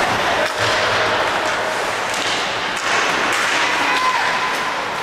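Ice hockey play in an arena: sticks and puck clacking and thudding against the boards, several sharp strokes over a steady crowd noise.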